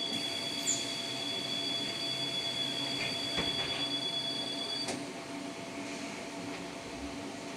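Inside a Škoda 32Tr SOR trolleybus: the electrical traction equipment gives a steady high two-note whine over a low hum. The whine cuts off with a click about five seconds in, and the hum carries on.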